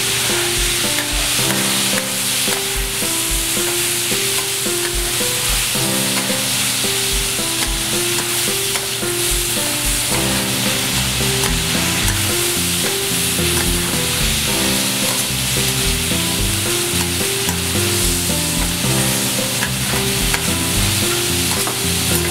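Offal, cabbage and green onions sizzling steadily on a hot iron teppan griddle, with metal spatulas scraping and turning the food. Soft background music with a simple melody plays underneath.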